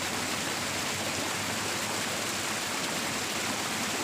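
Steady rush of water flowing along a small stone-lined irrigation ditch.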